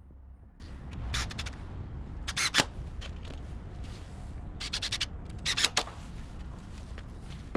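Old wooden fence boards being pulled out, with repeated bursts of sharp scraping and cracking of wood.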